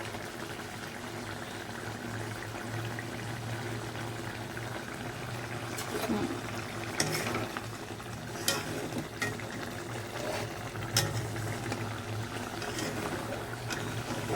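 Fish curry simmering and bubbling in a pan over a steady low hum, with a few sharp clicks of a utensil against the pan about six, seven, eight and a half and eleven seconds in.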